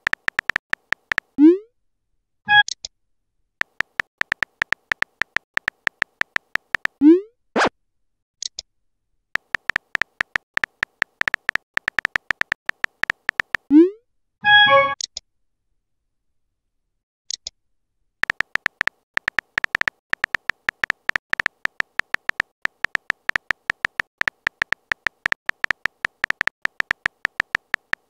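Phone keyboard tap sounds: rapid, evenly spaced clicks in four runs, three of them ending in a short rising swoosh of a text message being sent. Twice a brief chime of an incoming message sounds.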